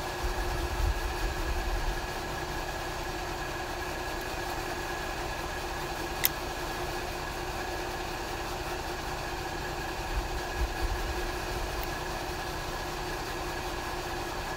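Steady machine hum with a few fixed tones in it. One sharp click about six seconds in, and a few soft low bumps near the start and again around ten seconds.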